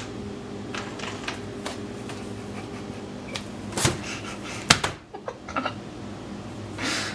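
A cat pawing at an ice cube inside a cardboard drink box: irregular light scrapes and knocks of ice and cardboard, the sharpest knock about four and a half seconds in, over a steady low hum.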